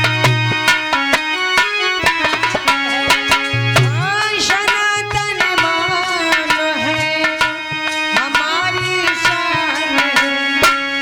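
Instrumental break of a Hindi folk devotional song: tabla playing a quick rhythm, its bass drum sliding in pitch, under a steady held melody line.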